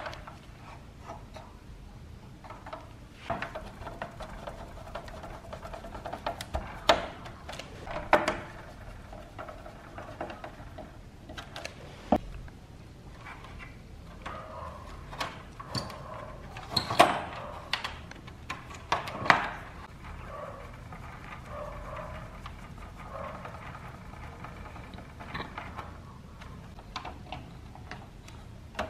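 Hands handling and fitting parts into a plastic fan housing: scattered clicks, taps and knocks of plastic and small metal parts being set down and pushed into place, with a few louder knocks about a quarter of the way in and again a little past the middle.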